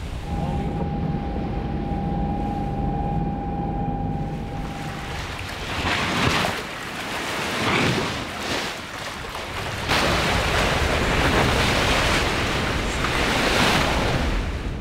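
Water and wind rushing past a sailing catamaran, swelling and easing in surges and louder from about halfway through. At first there is a low rumble with a faint steady tone.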